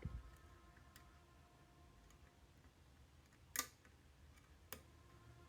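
Faint, sparse clicks of a wire pick working the wafers of an Ilco wafer cabinet lock under a screwdriver tension tool, with a sharper click about three and a half seconds in and another about a second later, over quiet room hum.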